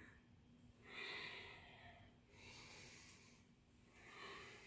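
A woman's faint breathing, three soft breaths in and out while exercising.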